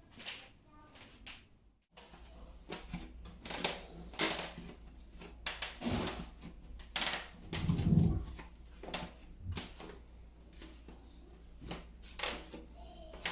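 Wooden floorboards clicking and creaking irregularly under footsteps, with a heavier thud about eight seconds in. This is the abnormal noise that the floor makes when it is walked on.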